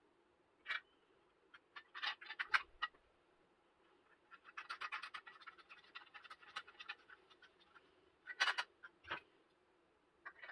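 Hard plastic clicking and scratching as a push-button actuator is handled and fitted into a plastic push-button enclosure. Scattered sharp clicks give way to a dense run of small rapid clicks in the middle, then one louder click and a last single click near the end.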